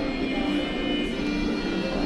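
Music playing: a melody of short held notes over a steady backing.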